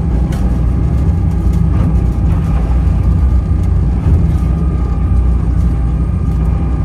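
Ferry engine running steadily, a deep rumble with a faint whine above it, with rushing water along the hull in rough seas.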